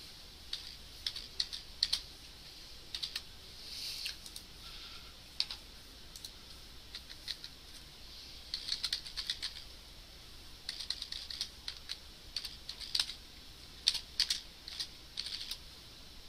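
Computer keyboard typing: irregular runs of sharp keystrokes with short pauses between them, busiest in the second half.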